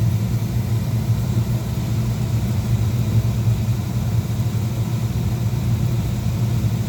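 Miller oil furnace with a Beckett oil burner firing, with its circulation blower running: an even, steady low hum and rumble with no break.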